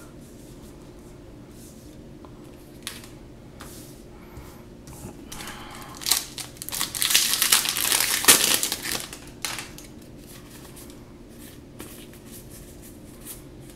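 Foil booster pack wrapper of a Modern Masters 2017 Magic: The Gathering pack crinkling and tearing as it is ripped open by hand, loudest from about six to nine and a half seconds in. Light clicks and rustles of cards being handled come before and after.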